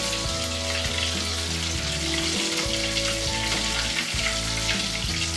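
Breaded chicken balls deep-frying in hot oil in a steel pot: a steady sizzle, with a spoon stirring and lifting the balls out of the oil.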